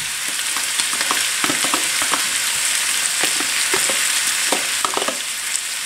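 Minced meat, zucchini and potatoes sizzling in a frying pan with a steady hiss, while a metal spoon scoops cream cheese from a plastic tub into the pan, giving a string of small clicks and scrapes.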